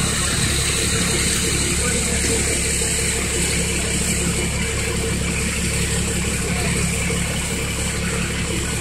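A large bus engine idling steadily at constant speed.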